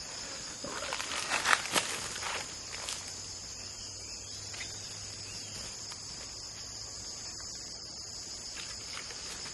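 Steady high-pitched chorus of crickets and other insects, with rustling footsteps in dry leaf litter during the first few seconds.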